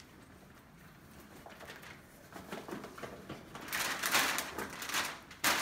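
Rustling and handling noises from rummaging through a bag, with louder bursts of rustling about two-thirds of the way in and again at the very end.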